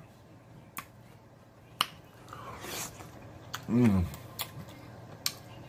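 Close-miked mouth sounds of eating sauced pork: sharp wet smacks and clicks of the lips while chewing, a hissing slurp about two and a half seconds in, and a short falling "mm" hum about four seconds in.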